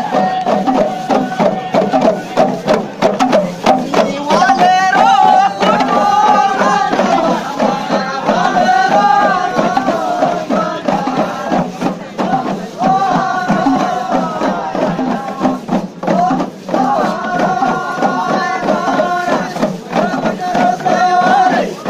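Live folk music: drums beating a steady rhythm with a melody of long held notes over them, the melody growing stronger about four seconds in.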